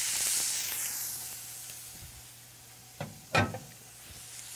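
Skin-on chicken breast sizzling in hot oil in a stainless steel pan, the sizzle strongest at first and dying down over the first couple of seconds. A short clink a little over three seconds in, then the sizzle builds again near the end.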